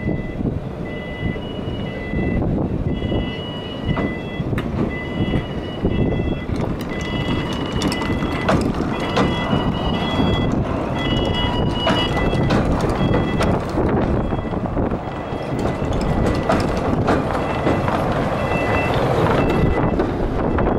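Battery-powered pier tram running on its rails, a steady rumble with scattered clicks that grows a little louder as it draws near and passes. Over it, a two-tone warning beep repeats at an even pace while the tram moves.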